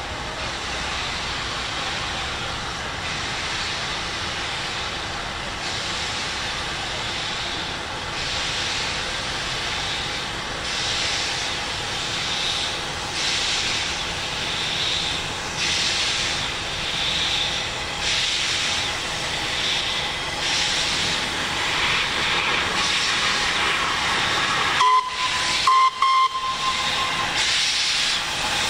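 Pakistan Railways HG/S broad-gauge steam locomotive starting slowly with a train of tank wagons: steam hissing from around the cylinders, with slow exhaust beats about one to two seconds apart. A short whistle blast sounds near the end.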